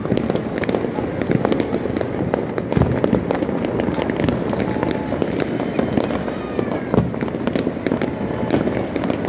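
Many fireworks and firecrackers going off all over a city at once: a dense, unbroken crackle of bangs near and far, with a short whistle about six and a half seconds in.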